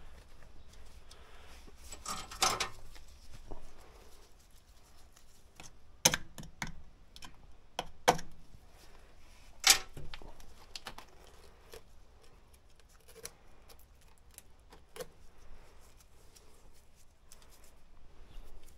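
Irregular clicks, clacks and rustling from hands handling tools and parts; the sharpest clacks come about six and ten seconds in.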